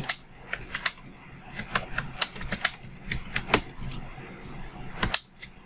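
Typing on a computer keyboard: a run of key clicks, unevenly spaced at about three or four a second.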